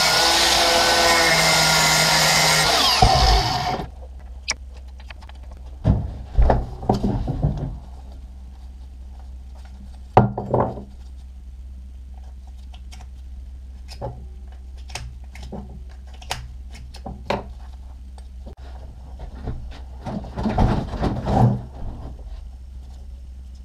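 Angle grinder grinding a small metal part held in a vise, a loud steady whine that stops about four seconds in. After that, scattered clicks and knocks of the metal part being handled on a workbench over a low steady hum.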